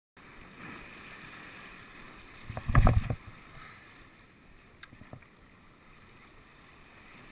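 Steady wind on the microphone and choppy water along the shore. About three seconds in comes a brief, loud knock with a rush of noise, and a couple of faint clicks follow a couple of seconds later as the spinning reel is handled.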